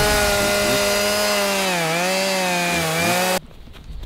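Chainsaw engine running at high revs with a steady pitch that dips briefly twice, then cuts off abruptly about three and a half seconds in. Quieter footsteps on grass follow.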